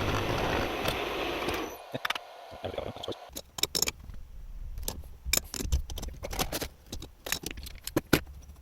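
A small power drill with a carbide bit runs steadily with a thin high whine, drilling out a ball valve's roll pin, and stops about two seconds in. After it come light metallic clicks and clinks of small metal parts being handled.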